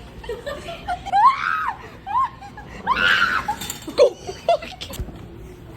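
People laughing and squealing in high, gliding voices, with the loudest shrieks about a second in and again about three seconds in.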